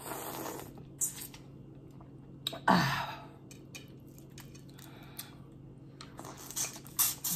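Close-miked mouth sounds of eating crawfish: chewing and wet smacking with scattered clicks. There are a few louder bursts near the start, about three seconds in, and near the end.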